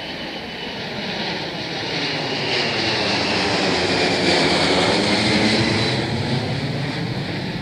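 Four-engine Boeing 747 jet passing low overhead: the engine noise swells to a peak about four to five seconds in and then fades. A high fan whine slides slightly down in pitch as the jet goes by.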